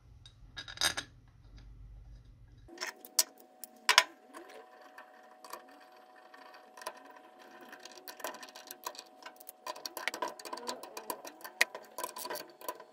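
Ratchet wrench with a 10 mm socket clicking in fast, uneven runs as it tightens the valve cover bolts on a motorcycle cylinder head, after a few light metal clinks of a bolt being set by hand in the first seconds.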